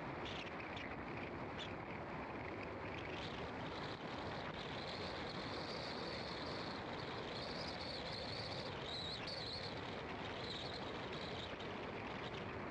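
Car driving along an asphalt road: steady tyre and engine noise. A high, wavering buzz joins from about five seconds in and fades out near the end.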